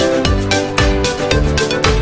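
Background music with a steady beat: electronic instruments playing notes over a bass thump about twice a second.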